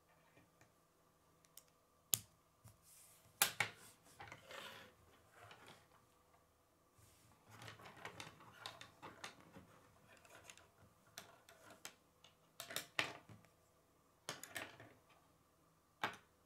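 Plastic K'nex rods and connectors clicking together by hand, with pieces tapping and sliding on a wooden tabletop. About half a dozen sharp clicks are spread among quieter rubbing and scraping.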